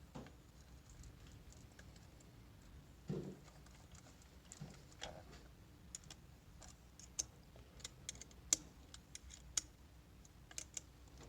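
Faint, irregular small clicks and taps of a 5/16 tool working the long bolts out of the transfer pump's head, with a duller knock about three seconds in. The clicks come more often in the second half.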